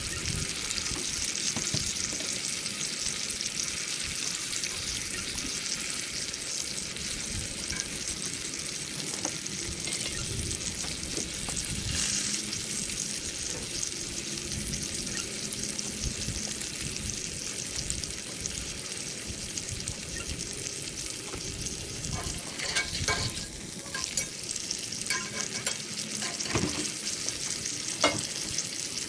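Wagyu steak sizzling steadily as it sears over a fire. There are a few sharp clicks and knocks near the end.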